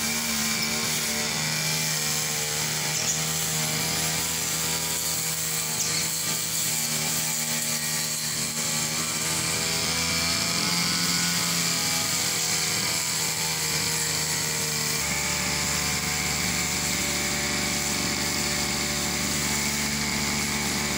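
Old backpack brush cutter's small engine running steadily while the cutting head trims grass, its note shifting slightly as the throttle changes. The engine has just been repaired and is running well.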